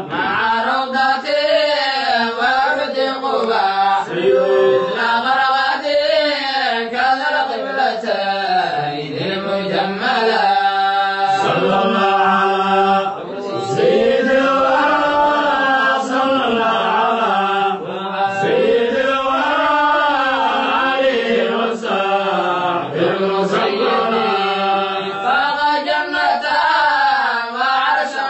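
Men's voices chanting a Somali Islamic devotional qasida, one melodic line sung in long phrases that rise and fall in slow arches, without pause.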